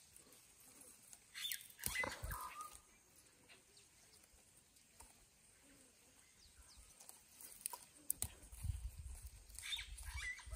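Green onion stalks rustling and snapping as they are picked by hand, faint. An animal's call, falling in pitch, sounds twice: about two seconds in and again near the end.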